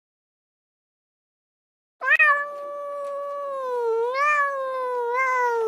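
A domestic cat giving one long, drawn-out meow that starts suddenly about two seconds in, holding a fairly steady pitch with a dip and two small upward swoops along the way.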